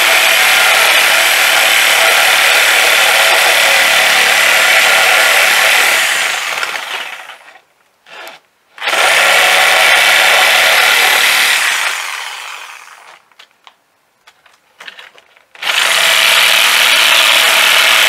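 Corded reciprocating saw cutting through plywood to finish a circular-saw cut. It runs steadily for about seven seconds and winds down, runs again from about nine to twelve seconds and dies away, then after a few light knocks starts again about two seconds before the end.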